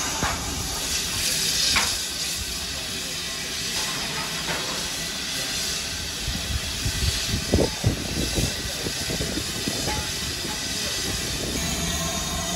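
BR Standard Class 9F 2-10-0 steam locomotive hissing steam steadily while standing, with a short run of sharp knocks and clanks about six to eight seconds in.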